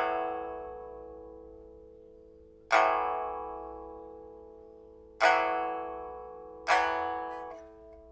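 Pipa with a large-fruit rosewood body, a newly fitted fire-baked soundboard and bamboo frets, played in a sound test after repair: four strong struck chords, each left ringing and slowly dying away, roughly two and a half seconds apart. The last chord comes sooner and is damped near the end.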